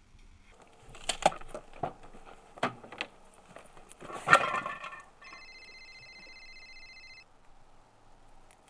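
A car door being handled: several sharp clicks and knocks, with one loud clunk a little past the middle. Then a steady electronic tone sounds for about two seconds.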